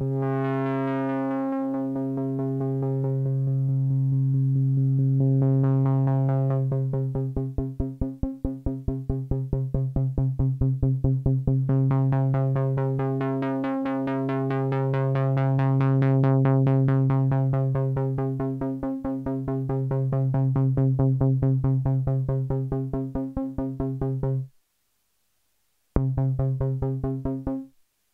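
MFOS Sound Lab Mini-Synth holding one low note that its AR envelope generator retriggers into a rapid, even pulse about four times a second. Its tone brightens and dulls as the knobs are turned. Near the end the sound cuts out for a moment, then comes back in short choppy pulses.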